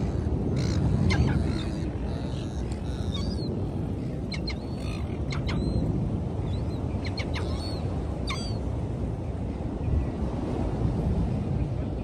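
Seagulls giving scattered short, high squeaky calls over a steady low rush of wind and surf.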